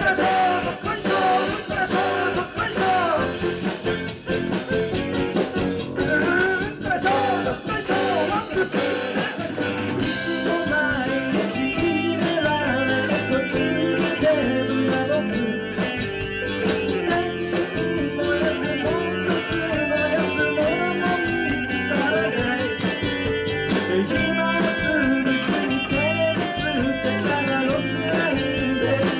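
Live rock band playing a song: a man singing over electric guitars, drums and keyboards, amplified through a club PA.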